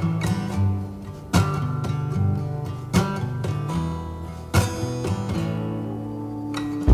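Background music: acoustic guitar strumming chords, with a strong strum about every second and a half.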